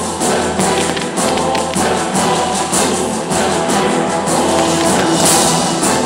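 Music for a pyromusical show, dense and loud with a steady beat, possibly with a choir.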